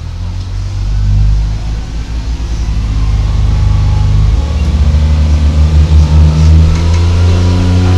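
Class 143 Pacer railcar's underfloor diesel engine pulling under power, heard from on board. It grows louder over the first couple of seconds, and its note changes about halfway through.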